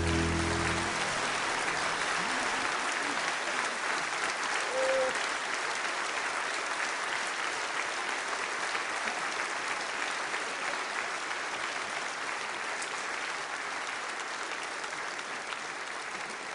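Concert audience applauding as a song ends, with the band's last held chord dying away about a second in. The applause slowly fades.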